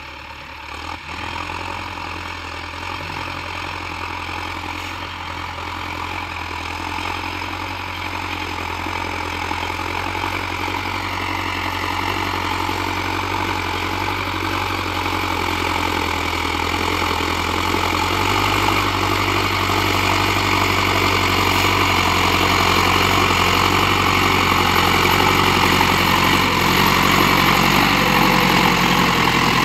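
Zetor 7745 diesel tractor engine running steadily under load while pulling a plough, growing louder as the tractor draws near.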